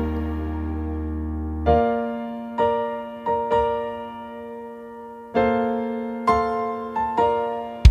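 Instrumental break in a pop ballad: a held keyboard chord fades, then a slow piano phrase of struck notes, each ringing and dying away, closing with a sharp hit as the band comes back in.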